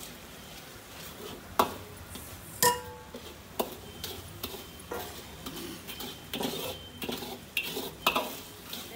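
Metal ladle stirring and scraping chili bean paste sauce around a wok, with the sauce sizzling in oil. The ladle knocks sharply on the wok about one and a half seconds in and again, loudest and with a short metallic ring, about two and a half seconds in, then scrapes and taps several more times.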